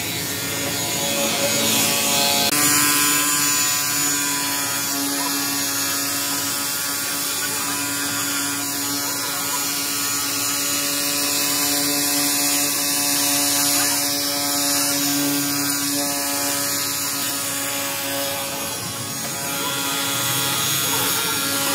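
Cordless 36-volt battery pressure washer running under load, a steady motor-and-pump whine with the hiss of its water jet spraying onto an air conditioner's fan and coil. The whine steps up slightly in pitch about two and a half seconds in.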